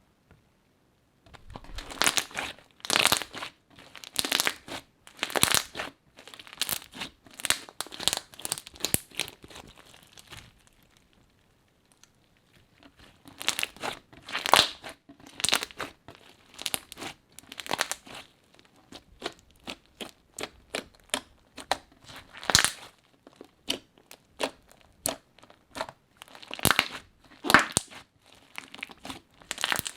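Crunchy slime being squeezed and pressed by hand, crackling and crunching in repeated bursts, with a pause of a couple of seconds near the middle.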